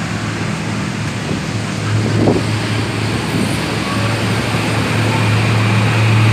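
A steady low engine hum over a general noisy background, growing louder over the second half.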